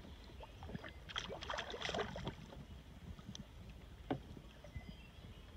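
Largemouth bass splashing and thrashing at the side of a small boat as it is grabbed and lifted from the water by hand: a burst of splashes about a second in, then a single sharp tap near the end, over a low steady rumble.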